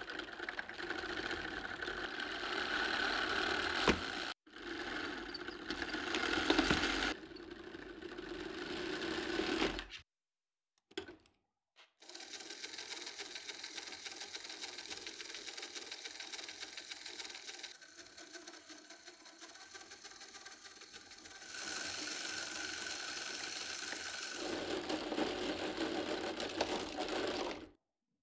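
Lego Technic treadmill of plastic tread links running: a fast, even clatter of the links, with the rattle of a small Lego vehicle's plastic wheels and frame rolling on them. It breaks off briefly about four seconds in, drops out for about two seconds a third of the way through, and stops just before the end.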